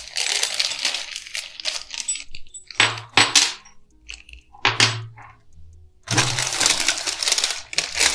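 Small plastic bag crinkling as it is opened, then small screws and a metal hex key clinking down onto a table in a few short knocks about three and five seconds in, followed by plastic packaging rustling.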